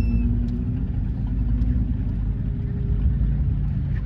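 A distant engine drones steadily: a low rumble with a faintly wavering pitch. A gull gives a short high call right at the start.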